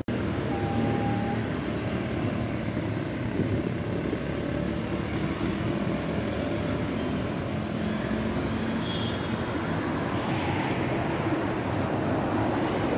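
Steady city street traffic noise, with cars and other motor vehicles driving past.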